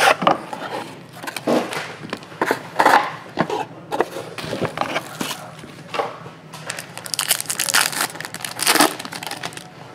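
Clear plastic shrink-wrap crinkling and crackling in irregular bursts as it is peeled off a sealed trading-card box. Near the end, a clear plastic wrapper crinkles as it is handled between the fingers.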